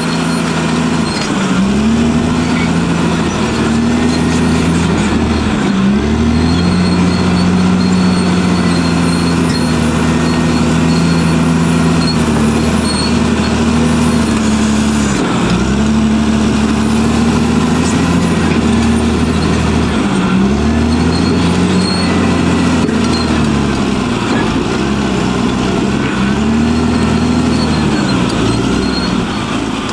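Caterpillar D6R bulldozer's diesel engine working under load while digging out tree roots, its pitch dipping sharply and recovering several times.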